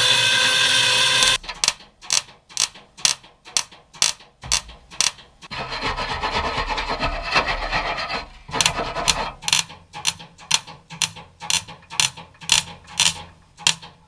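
A power tool runs and cuts off about a second in. Then come regular rasping strokes on a sheet-steel repair panel, about two to three a second, with a stretch of steadier rubbing in the middle.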